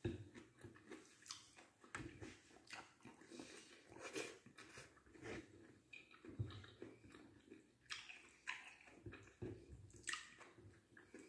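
Close-up eating sounds: chewing of rice and boiled vegetables with wet mouth smacks, and fingers squishing and picking rice on a plate, as a string of short, quiet, irregular clicks.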